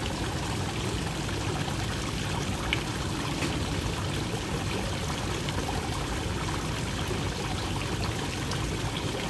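Water pouring and trickling steadily into a koi pond, a continuous running-water splash.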